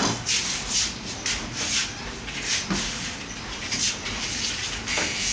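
Pencil scratching on a painted plaster wall in a run of short, irregular strokes, marking lines along a spirit level.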